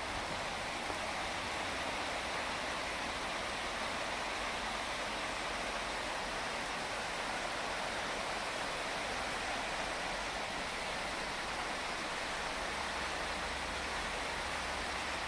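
West Prong of the Little Pigeon River rushing over rocks in shallow rapids: a steady, even rush of water.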